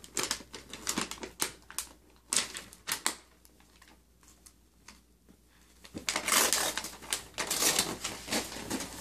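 Gift wrapping paper being torn and crinkled off a cardboard box by a small child's hands: a run of short crackles and taps in the first three seconds, a brief lull, then denser tearing and rustling for the last three seconds.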